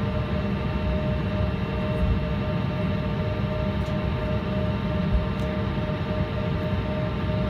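Jet engine noise heard inside the cabin of an Embraer 170 taxiing, from its General Electric CF34-8E turbofans: a steady whine of several held tones over a low rumble.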